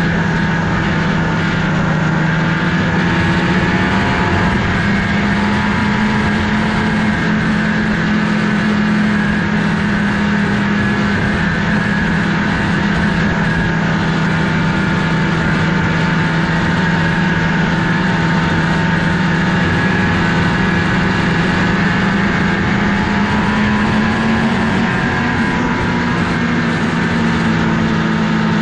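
Engines running at a steady drone, with two close pitches that drift slightly about 24 seconds in.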